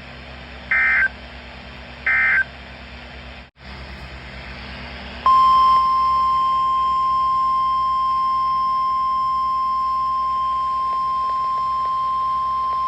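Emergency Alert System end-of-message data bursts from NOAA Weather Radio: two short buzzing digital chirps about a second apart, the last of a set of three. After a brief dropout, the 1050 Hz weather radio warning alarm tone comes on about five seconds in and holds one steady, piercing pitch, the alert signal that announces a new warning, over the receiver's hiss and hum.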